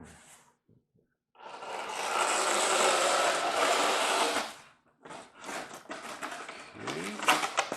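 Packaging being worked out of a cardboard box: a steady sliding and scraping of about three seconds, then irregular rustling with a few short squeaks of foam and plastic packing.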